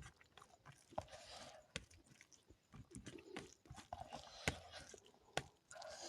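Close-up mouth sounds of a person eating curry and rice: soft wet chewing broken by irregular sharp clicks, the loudest about four and a half seconds in.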